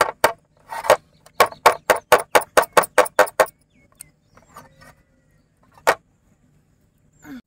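A bowl of cake batter tapped again and again on a hard surface, about four to five sharp knocks a second in two runs, then one last knock near the end. The tapping settles the batter evenly and knocks out air bubbles.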